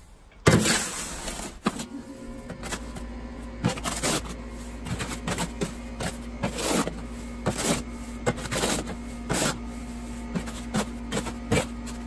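Steel shovel scraping and scooping through a gritty mix of perlite, sand and cement in a steel wheelbarrow, a stroke every second or so, with a hard knock of the blade about half a second in.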